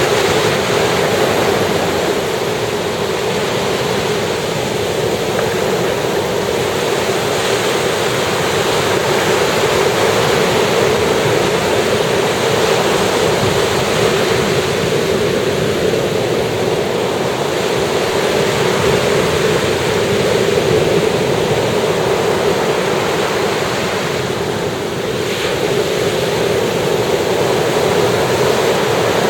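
Ocean surf breaking on a beach: a loud, continuous rush of waves that rises and falls gently over several seconds, easing briefly a little before the end.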